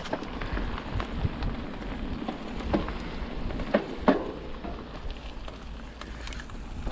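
Mountain bike rolling over a dirt trail: tyres crackling on the ground and the bike rattling in short knocks over a low rumble. Two louder knocks come close together about four seconds in.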